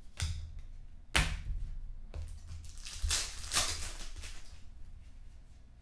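Hands handling trading cards and a foil card pack: a few sharp taps and rustles, then a longer crinkling of the foil wrapper about three seconds in.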